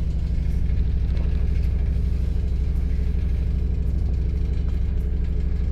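Diesel train engine idling with a steady, low hum.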